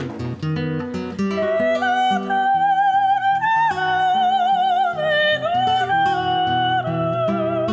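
Flamenco cante: a woman singing long, wavering, ornamented held notes over a flamenco guitar playing plucked notes and chords.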